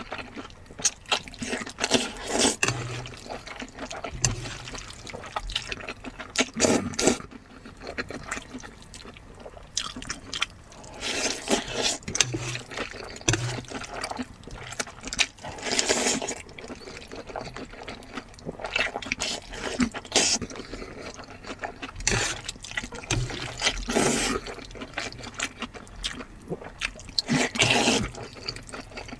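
A person eating close to the microphone: wet chewing, lip-smacking and slurping in irregular bursts.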